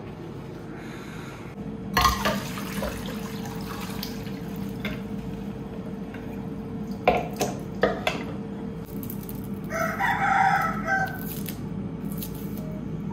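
A rooster crows once, about ten seconds in, over water running in the sink and a few sharp clicks of kitchenware.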